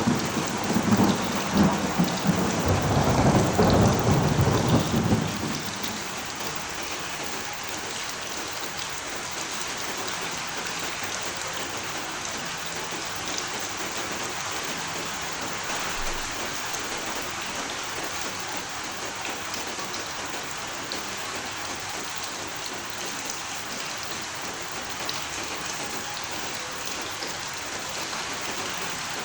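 A roll of thunder rumbling over steady rain, dying away about five seconds in and leaving the rain falling evenly.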